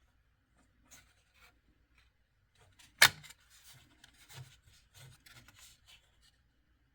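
Handling noise: scattered light clicks and rubbing, with one sharp, loud click about three seconds in followed by a run of small clicks and scrapes.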